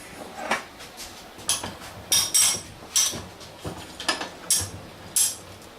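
Steel parts of a FAR KJ45S air rivet nut tool clinking as its nose head is handled: about ten sharp metal clinks with a bright ring, irregularly spaced.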